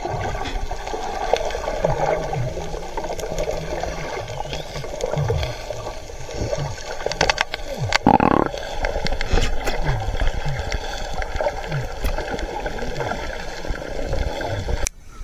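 Water heard underwater: a steady muffled gurgling, with many short low sounds that drop in pitch, repeating every second or so, and a brief louder rush about eight seconds in.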